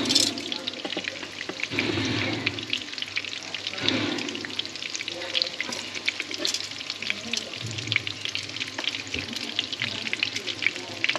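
Breaded flathead fillets frying in hot oil, with a steady crackling sizzle.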